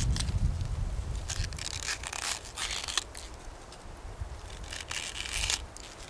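Crunching, crinkling noise in two stretches, the first about a second and a half long and a shorter one near the end, with a few single clicks between.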